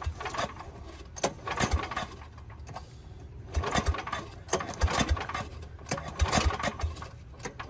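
Small lawn mower engine being pull-started by its recoil cord: several hard pulls, each a short burst of rasping and cranking, without the engine catching.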